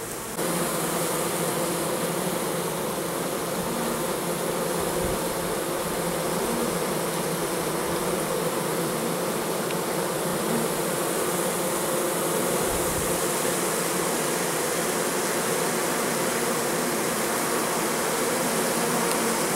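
Honey bees buzzing in a dense, steady drone at the hive entrances, many bees flying in and out at once: the heavy foraging traffic of a strong goldenrod nectar flow. The buzzing gets louder about half a second in.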